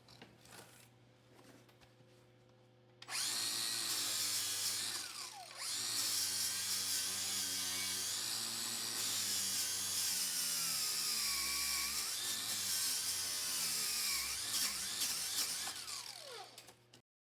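Power tool, most likely an angle grinder, running on the steel frame with its motor whine rising and falling under load. It starts about three seconds in and cuts off just before the end.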